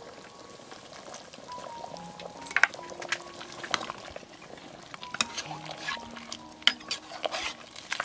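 A metal ladle stirring chicken soup in an aluminium pot, knocking and clinking against the pot several times over the hiss and bubbling of the simmering broth.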